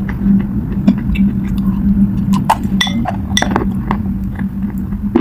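Clay being bitten and chewed: a run of sharp, crisp crunches, thickest in the middle, over a steady low hum.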